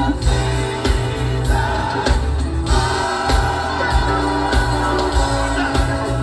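Live gospel music: a band playing with a steady beat and voices singing together.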